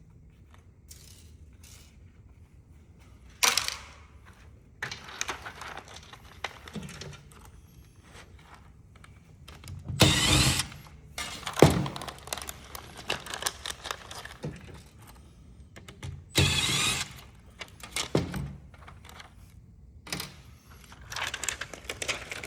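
Plastic knocks, clicks and scraping as a keyboard is taken apart by hand, in irregular bursts with the loudest clatter about ten seconds in.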